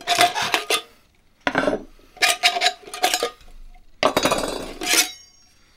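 Metal camp-stove parts clattering and clinking as they are pulled out of the stove's cooking canister and set down on a table, in four short bursts with a brief metallic ring.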